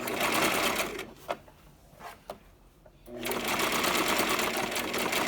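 Brother sewing machine stitching a zigzag seam through hair wefts, running in short starts and stops: a run of rapid, even needle strokes that stops about a second in, a couple of single clicks, then the machine starts again about three seconds in.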